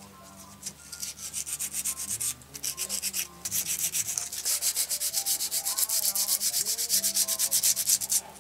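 Rapid back-and-forth scrubbing by hand on a part of a jukebox mechanism, several scratchy strokes a second. It pauses briefly twice and stops just before the end.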